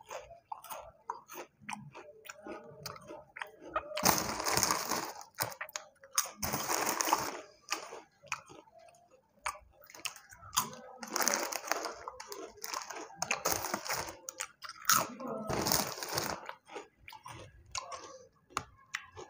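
A person crunching and chewing crisp fried snacks, with about five loud spells of a foil snack bag crinkling as it is handled.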